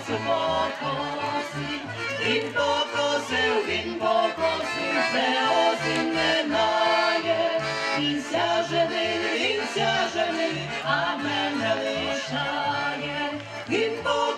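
Folk band music with singing over a bass line of short, regular notes.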